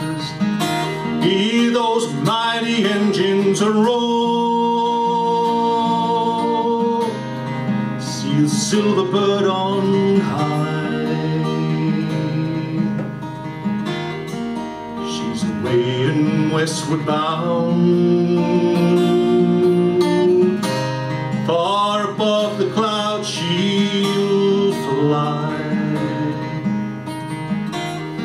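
Solo steel-string acoustic guitar playing a country-folk song, with a man's singing voice in some stretches.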